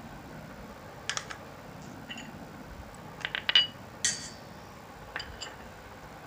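A spoon clinking and tapping against a bowl in short clusters of ringing clicks, the loudest just past the middle, as rice flour is spooned into the besan for the batter.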